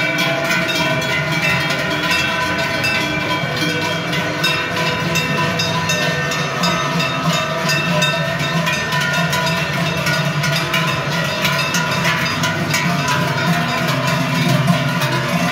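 Large cowbells clanging on the necks of walking cows, many bells swinging at once to make a dense, continuous clatter of overlapping ringing tones.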